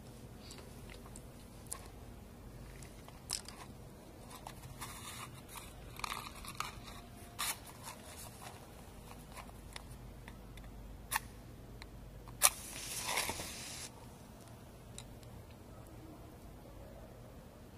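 Small clicks and scrapes of a tobacco pipe being handled, then a wooden match struck about twelve seconds in: one sharp strike followed by about a second of hissing flare.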